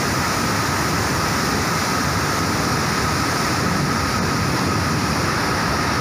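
Waterfall plunging into its rock pool: a steady, unbroken rush of falling water, heard close to its base.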